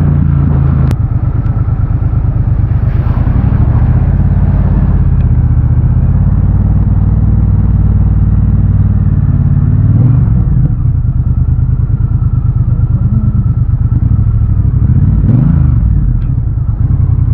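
Triumph Bobber's parallel-twin engine running at low revs with an even, pulsing beat, with a brief rise and fall in revs near the end.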